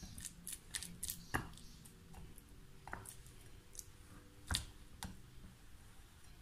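Silicone spatula stirring a tuna and mayonnaise filling in a glass bowl: quiet, scattered clicks and taps of the spatula against the glass with soft squishing, and a few sharper taps.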